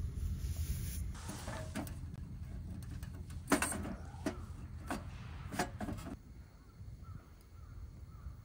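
A series of five or six sharp knocks and clunks from a wood-burning stove being tended, the loudest about three and a half seconds in, with the last near six seconds. A low wind rumble runs beneath them.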